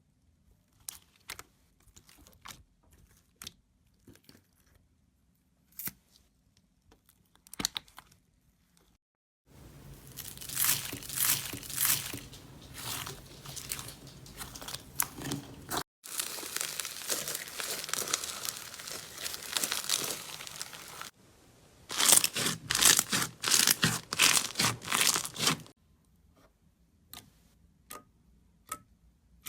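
Slime being squeezed and stretched by hand. Scattered small pops and clicks open it. About nine seconds in, dense crackling starts and runs for roughly sixteen seconds, broken by short gaps. It is loudest in a burst near the end of that stretch, then it falls back to sparse clicks.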